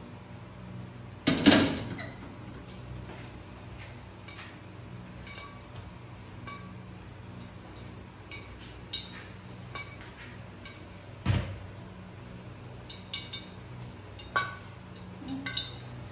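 Metal cookware clanking on a gas stove: a loud clank about a second and a half in and another knock about eleven seconds in, with small clinks and ticks between, over a steady low hum.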